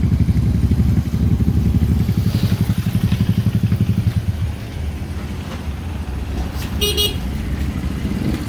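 Small motorcycle engines running at low revs close by, with a fast even beat that gets quieter about four seconds in. A short, high-pitched horn beep sounds about seven seconds in.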